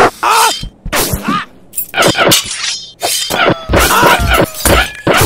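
Cartoon fight sound effects: a rapid run of short hits and crashes mixed with brief snarling cries, some ten separate sounds in about five seconds.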